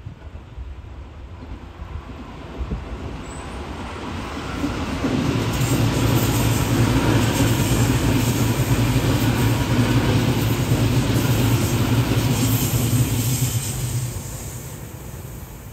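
Tobu 10000-series electric commuter train passing at speed. A steady low rumble of wheels on rail grows as it approaches, stays loud for about nine seconds as the cars go by, and fades away near the end.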